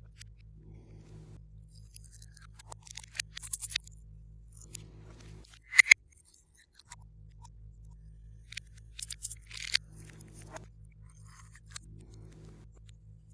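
Glossy slime being worked by hand, giving clusters of sticky crackles and pops, the sharpest about six seconds in, over quiet background music.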